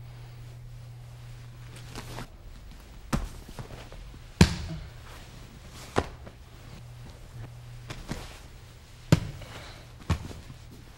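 Bodies and feet thudding and slapping on a training mat during jiu-jitsu self-defence demonstrations: about seven separate thuds a second or so apart, the loudest about four and a half seconds in.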